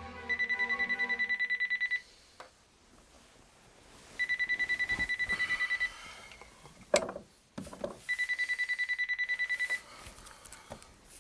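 Electronic telephone ringing three times, each ring a rapidly pulsing high tone lasting nearly two seconds with a pause of about two seconds between rings. A sharp click sounds between the second and third rings.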